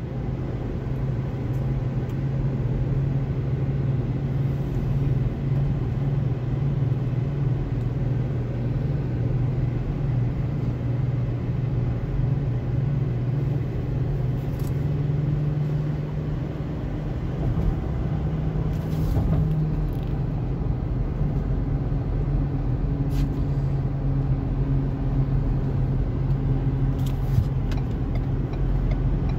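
Steady car-cabin drone of engine and tyre noise while cruising on an expressway, with a few faint clicks.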